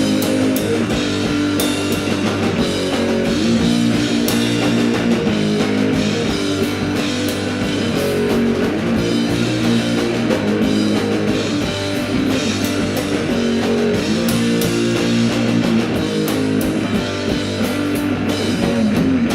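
Live rock band playing an instrumental passage with guitars, bass and drum kit at a steady beat.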